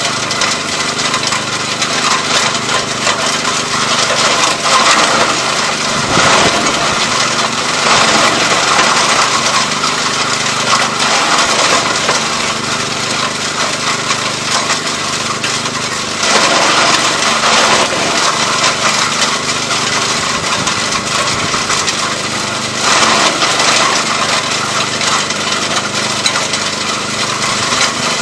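ELIET Minor 4S garden chipper's small engine running steadily while branches are fed in and shredded, with a dense crackling of splintering wood that swells louder several times as more branches go in.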